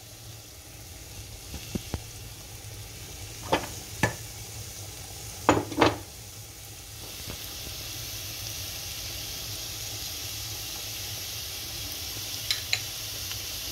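Chopped onions sizzling in oil in a frying pan, the sizzle growing louder about halfway through. A few sharp knocks sound over it.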